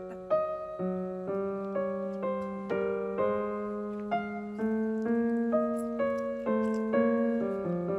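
Background piano music: a gentle melody of single notes and chords, each struck and left to fade, about two a second.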